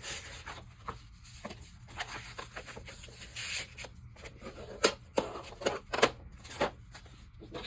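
Thick cardstock being handled and scored: paper scraping and rustling with many short sharp taps. The loudest taps come about five and six seconds in.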